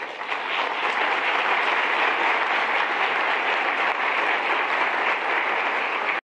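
Audience applauding steadily, a dense even clapping that cuts off abruptly near the end.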